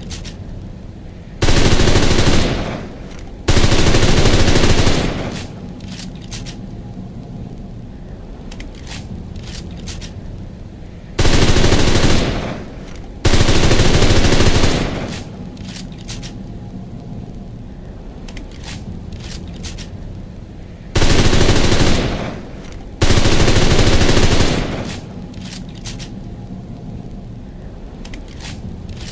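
MP38 submachine gun firing short bursts of automatic fire in pairs: a burst of about a second, then a longer one of about a second and a half, the pair coming again about every ten seconds. Faint clicks and a low steady background can be heard between the pairs.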